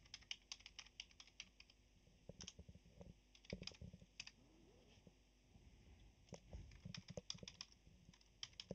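Computer keyboard typing, faint key clicks in short irregular bursts.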